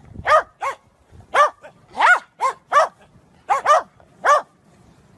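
Corgi barking repeatedly: about ten short, high-pitched barks, each rising and falling in pitch, with short gaps between them.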